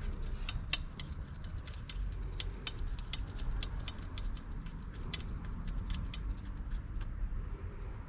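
Irregular small metallic clicks and ticks, several a second, from hand tools and bolts being worked while a throttle body is fitted to the intake, over a low background rumble.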